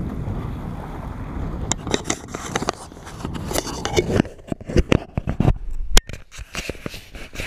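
Wind and sea noise on the camera microphone, then a run of knocks, scrapes and rubs from a hand taking hold of the camera. About halfway through the wind noise drops out, leaving scattered sharp clicks and taps; the loudest comes about three-quarters of the way through.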